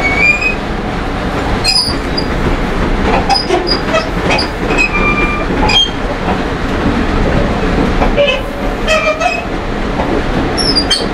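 Steel wheels of a bi-level commuter train cab car rolling on track, heard from inside the car: a steady low rumble with short high-pitched wheel squeals again and again and a few sharp clicks from the rails.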